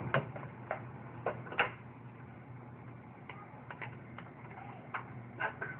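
Scattered light clicks and knocks of the plastic parts of a Hoover Tempo Widepath bagged upright vacuum being handled while it is switched off, with a faint steady hum underneath.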